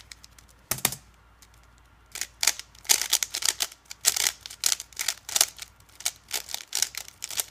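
A Rubik's cube's plastic layers being turned in quick succession: one clack about a second in, then a run of irregular sharp clicks that continues almost to the end.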